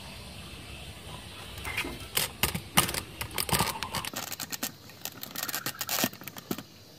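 A faint steady hiss, then from about a second and a half in a quick, irregular run of sharp clicks and scratches: handling noise as a hand grips and moves along the rubber garden hose at its joint.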